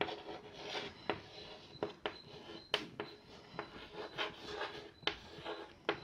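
Chalk writing on a chalkboard: short scratching strokes with several sharp taps as the chalk meets the board.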